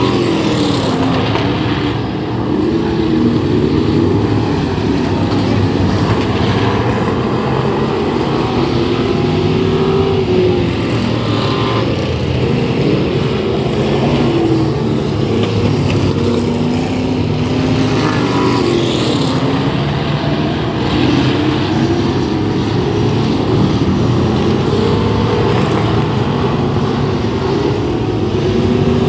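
Several race car engines running laps on a speedway, pitch rising and falling again and again as they accelerate and lift.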